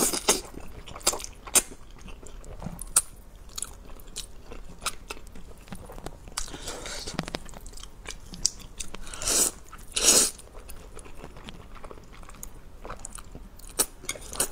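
Close-up mouth sounds of eating saucy zhajiangmian noodles: wet chewing and smacking clicks throughout, with two longer slurps about six and a half and nine and a half seconds in, the second the loudest.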